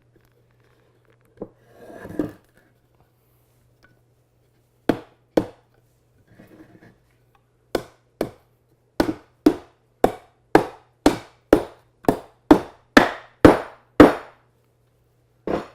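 Repeated hammer blows on wood as a breadboard end is driven onto the floating tenons of a tabletop. There are a few single knocks, then a quickening run of about two blows a second that grows louder, and one last blow near the end.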